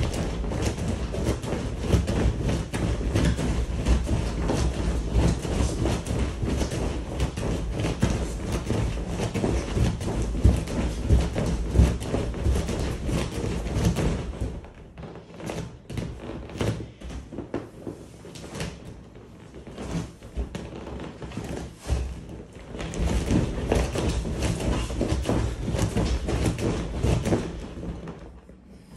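Bare feet jumping on an inflated air mattress: a rapid run of thumps as the mattress flexes. The thumping is dense for about half the time, turns sparser and quieter for several seconds, then comes back dense before easing off near the end.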